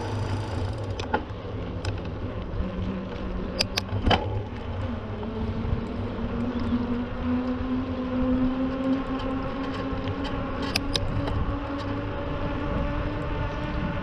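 A motor vehicle engine running steadily, its hum slowly rising in pitch, with a low rumble and a few sharp clicks.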